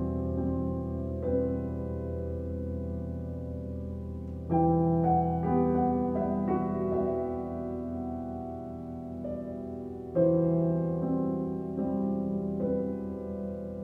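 Slow, sparse piano music: chords struck every few seconds and left to ring, with a short run of notes near the middle.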